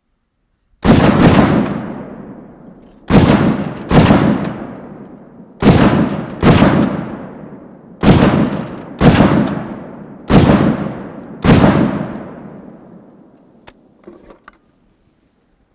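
AR-platform rifle firing about ten shots, mostly in pairs about a second apart, each shot echoing and fading over a second or two. A few faint clicks follow near the end.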